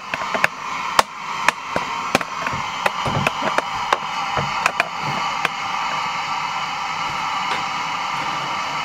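A steady rushing noise, with scattered sharp clicks and a few low knocks over the first five seconds.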